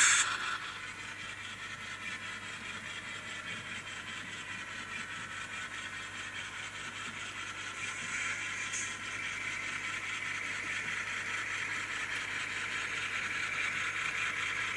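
An N-scale GE P42 model locomotive's LokSound 5 sound decoder plays a diesel locomotive running sound through its tiny speaker as the model runs, thin and lacking any low rumble. The sound gets louder again around eight seconds in.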